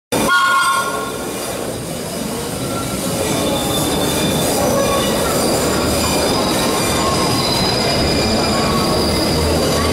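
Vintage IRT Lo-V subway cars (built 1916–1925) pulling into the station: steel wheels rolling over the rails with a steady rumble, and several high-pitched squeals that come and go as the train slows.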